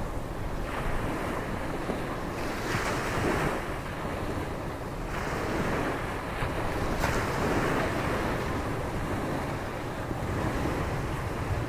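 Ocean surf breaking and washing up a beach in stormy weather, swelling every few seconds, with wind gusting over the microphone.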